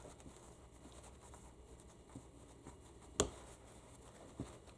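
Faint small metal clicks and scrapes as a fluid-coated retainer plug is picked at in its bore in a U140 automatic transmission part. There is one sharp click about three seconds in and a lighter one near the end.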